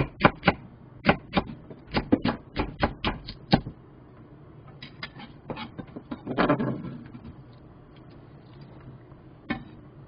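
Chef's knife chopping a green onion on a wooden cutting board: quick, sharp knife strikes on the board, about three a second, for the first three seconds or so. A little past the middle, a brushing scrape as the cut pieces are swept across the board by hand, and one more knock near the end.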